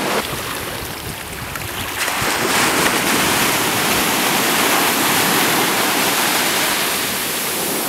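Small waves breaking and washing up the sand at the water's edge, getting louder about two seconds in and swelling through the middle before easing a little.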